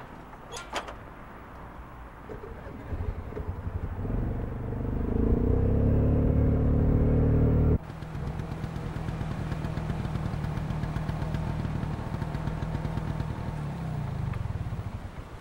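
Motor scooter: a sharp clack near the start, then the small engine starts up and revs, rising in pitch and getting louder. It breaks off abruptly about eight seconds in, and the engine then runs steadily as the scooter rides past with two people aboard.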